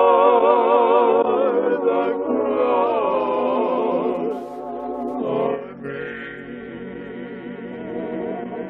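Voices singing a worship song in long held notes with vibrato, choir-like and chant-like; it drops to a softer passage about six seconds in.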